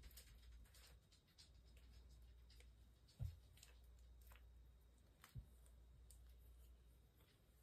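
Near silence with a steady low hum, broken by two soft thumps about three and five seconds in and a few faint ticks: a gloved hand handling the sheet-covered work table.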